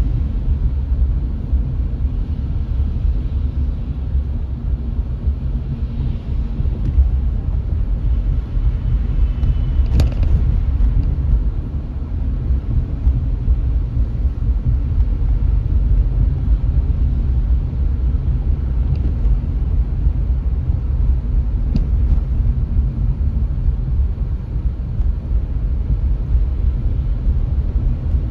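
A car driving along a city street: a steady low rumble of road and engine noise, with one sharp click about ten seconds in.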